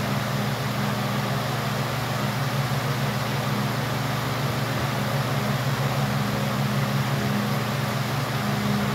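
High-velocity floor fans running steadily: a low motor hum with an even rush of moving air.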